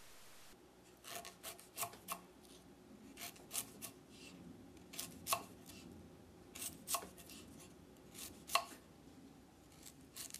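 Kitchen knife slicing through galangal root onto a wooden cutting board: each slice a crisp cut ending in a tap on the board, coming in pairs roughly every second and a half.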